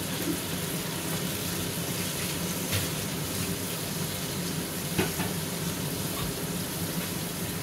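Onion-tomato masala bubbling and sizzling steadily in hot oil in an aluminium pot, with raw chicken pieces just added to fry. A couple of faint clicks stand out partway through.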